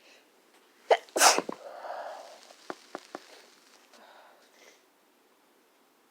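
One loud sneeze a little over a second in, with a brief sharp sound just before it and a few quieter small sounds and clicks after.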